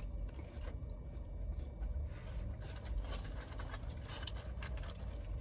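Low steady rumble inside a parked car's cabin, with faint rustling and small clicks scattered through it.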